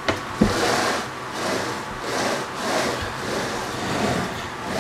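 The CNC machine's carriage being pushed back and forth by hand on its linear rails, the bearing blocks rolling along the steel rails. There is a knock about half a second in, then a rolling, rumbling noise that swells and fades with each stroke, roughly one and a half strokes a second.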